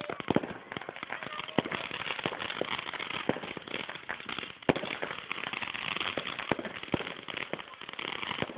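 Fireworks going off: a continuous dense crackle with many sharp pops scattered through it.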